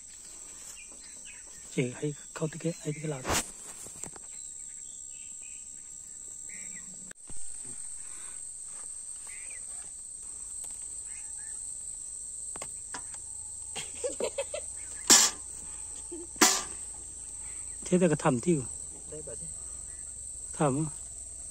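Insects trilling steadily in a continuous high-pitched drone over the field, with a few sharp knocks and short bursts of voices.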